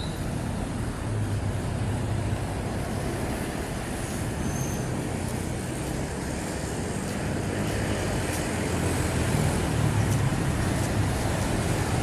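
Steady hum of road traffic, with engine noise from passing cars and larger vehicles swelling a little near the end. Two faint short high chirps sit over it, one at the very start and one about four and a half seconds in.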